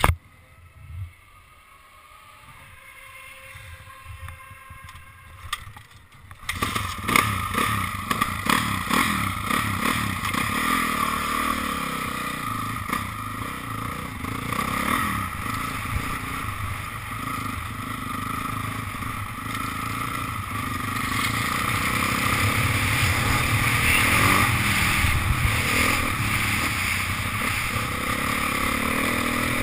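Quiet at first with a few knocks, then from about six seconds in a dirt bike's engine runs loud under way, mixed with wind buffeting and rattling, getting somewhat louder in the second half.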